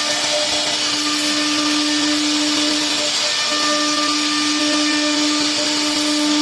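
3-axis CNC router spindle running with a steady whine over a loud hiss; the whine drops out briefly a little past three seconds in.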